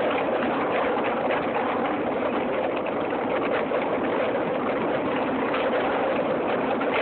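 Bike descending fast on a rough gravel trail: a steady rush of wind on the microphone mixed with the crunch and rattle of tyres over loose stones.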